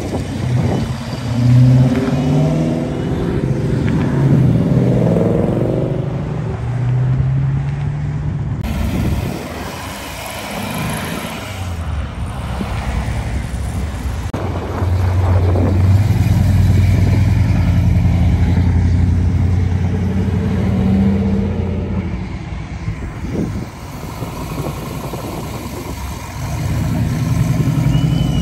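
Several cars accelerating past one after another, their engines revving up through the gears with pitch rising and dropping at each shift. The loudest burst comes in the first few seconds, a steadier low engine drone runs through the middle, and another car pulls away louder near the end.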